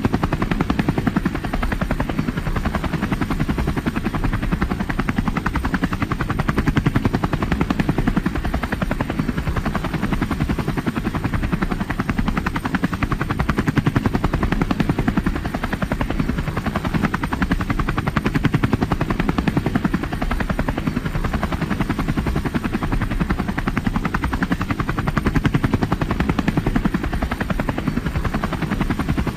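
Helicopter in flight: a steady, rapid rotor chop over a low engine drone, swelling and easing slightly every few seconds.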